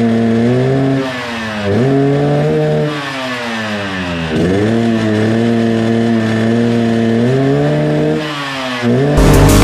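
Yamaha RX-King two-stroke single-cylinder motorcycle engine revved and held at steady high revs, dropping and climbing back in pitch three times as the throttle is eased off and reopened. Electronic music with a heavy beat cuts in just before the end.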